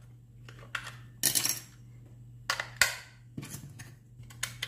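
AA batteries being fitted into a plastic battery compartment, giving a handful of separate sharp clicks and clinks of metal on plastic over a few seconds. A faint steady low hum runs underneath.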